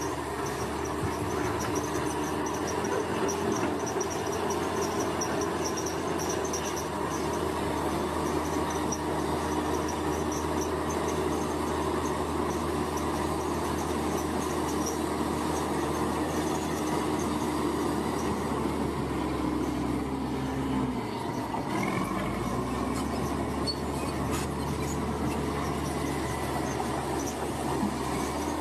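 Bulldozer's diesel engine working steadily under load, with a faint high squeal over the drone. About two-thirds of the way through, the engine note drops briefly and then picks back up.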